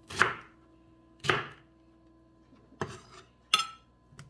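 Kitchen knife chopping pineapple into smaller pieces: about five separate sharp chops at uneven spacing.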